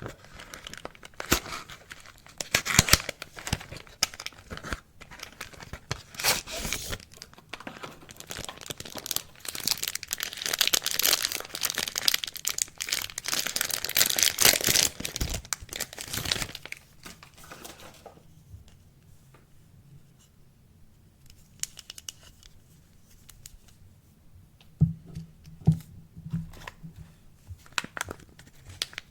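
Soap wrapper being torn open and crinkled by hand: dense tearing and crackling that is loudest in the middle and stops about two-thirds of the way through. A few short knocks follow near the end.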